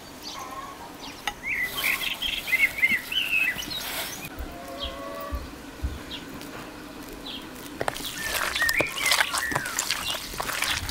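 Small songbirds chirping in short bursts, twice, with the soft squelch of hands kneading raw minced meat in a plastic bowl near the end.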